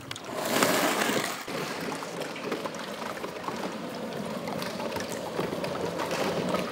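Rushing, water-like noise that swells about half a second in and then runs on steadily.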